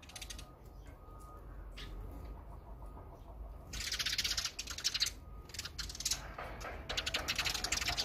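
Eurasian tree sparrows at a seed feeder: a few single chirps, then from about halfway through bursts of rapid, harsh chattering calls.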